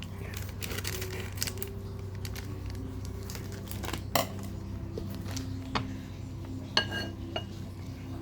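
Kitchen utensils and dishes knocking and clinking: a few separate knocks, one about seven seconds in with a short ringing clink, over a steady low hum.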